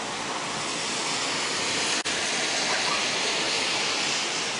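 Steady rushing hiss of hurricane wind and rain, with power lines arcing on a utility pole; the sound drops out for an instant about two seconds in.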